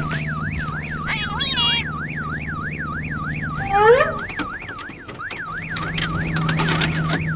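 An emergency-vehicle siren sweeping quickly up and down, about three times a second, over a steady low hum. Short squeaky gliding cries come about a second in and again about four seconds in.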